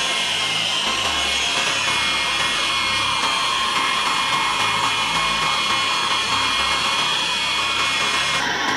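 A handheld power tool running steadily: a high motor whine over a dense working noise.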